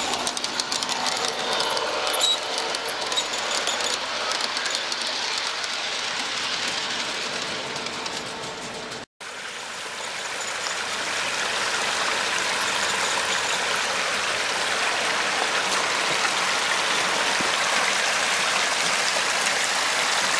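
G-scale garden model train running on its track, its wheels clicking on the rails. After a sudden break about nine seconds in, a garden pond waterfall splashes steadily.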